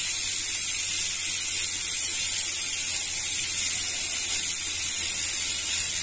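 RT freehub on a mountain bike's rear wheel coasting freely, its three pawls ratcheting over the engagement teeth in a loud, steady, high-pitched buzz, the 'monster cricket' freehub sound. The wheel keeps spinning a long time, a sign that the hub's bearings still run freely after about two months' use.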